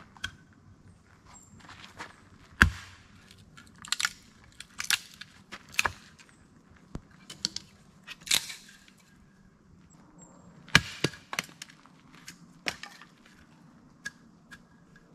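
Firewood being broken up for a campfire: sharp, irregular cracks and snaps of wood, some followed by a brief crackle of splintering, the loudest about two and a half seconds in and again near eleven seconds.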